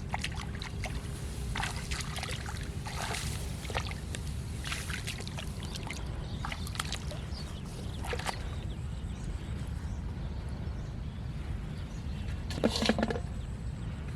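Water sloshing and splashing in a shallow flooded field, with scattered small splashes and a louder splash about thirteen seconds in, over a steady low rumble.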